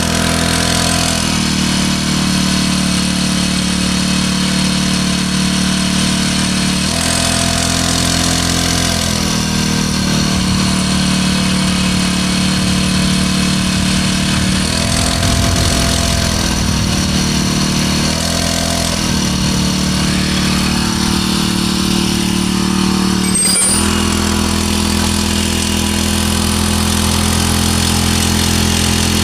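Small four-stroke engine of a Matsumoto Platinum 20-litre engine sprayer running, its note shifting up and down several times. A sharp click comes about three-quarters of the way through, after which it runs steadily.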